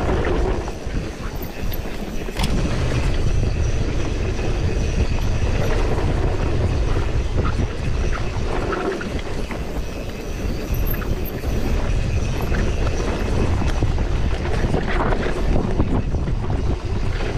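Wind buffeting the microphone over a steady low rumble, as when riding on a moving vehicle.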